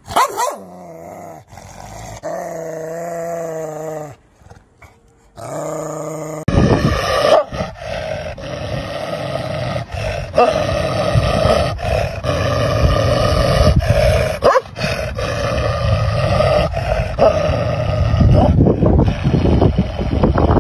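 Dogs growling: first a Rottweiler's steady, slightly wavering growl, then, after a short lull about six seconds in, a louder, harsher snarling growl from a large white dog baring its teeth.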